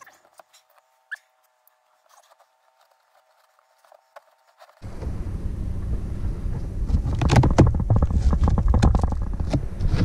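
Faint rustles and clicks of carpet being handled, then about five seconds in a sudden loud run of close rough scraping, rustling and crackling with a low rumble: hands working right at the microphone over the cracked, glassed-over plywood cabin floor.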